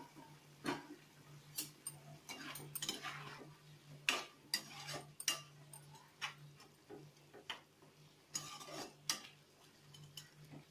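Metal spatula stirring chicken pieces in a pan of curry, with irregular scrapes and clinks against the pan. A steady low hum runs underneath.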